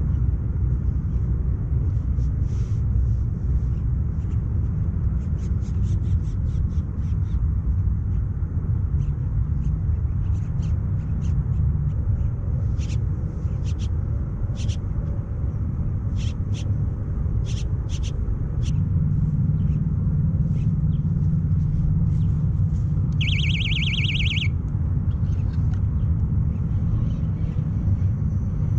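A steady low rumble runs throughout, with scattered short high chirps and clicks. About 23 seconds in, a fishing reel clicks rapidly for just over a second as a hooked carp pulls line off it.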